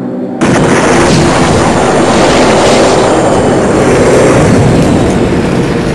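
Loud television static hiss that cuts in suddenly about half a second in and holds steady.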